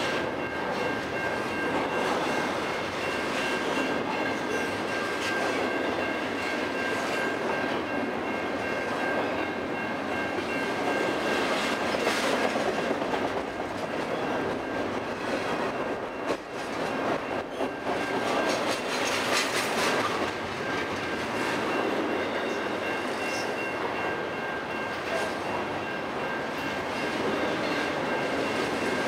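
A long freight train of double-stack intermodal well cars rolling past at close range: a steady rumble and rattle of steel wheels on the rails. A thin, steady high-pitched ring runs underneath.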